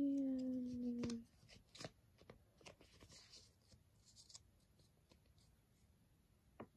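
A person hums one short, slightly falling note, then Pokémon trading cards and a booster pack are handled, giving faint scattered clicks and ticks.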